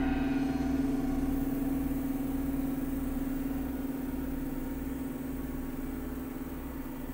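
Electronic ambient music: a sustained low synth drone with a bass pulse about twice a second. Higher tones fade out in the first second, and the whole slowly gets quieter.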